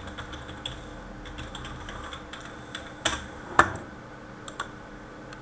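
Typing on a computer keyboard: a run of quick keystrokes, then two louder clicks a little past the middle and a few scattered clicks after.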